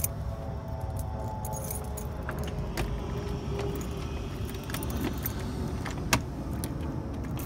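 A ring of keys jangling, with scattered metallic clicks as a key is worked into a brass doorknob lock to lock the front door. A low steady rumble runs underneath.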